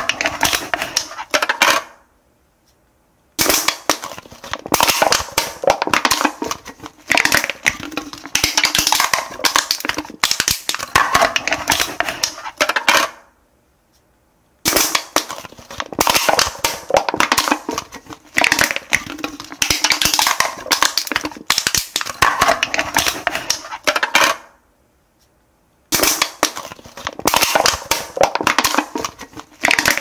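Aluminum cans being crushed, the thin metal crumpling in long runs of sharp crackles and clicks. The crushing stops briefly three times: about 2 s in, at about the middle, and about 25 s in.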